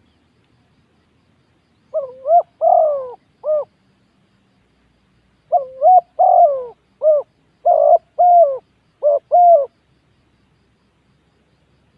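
Spotted dove cooing: a short three-note phrase, then after a pause a longer run of throaty, warbling coos.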